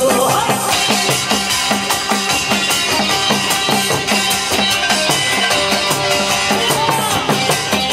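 Korean percussion ensemble playing a fast, steady beat on drums, with a small brass hand gong (kkwaenggwari) ringing over it.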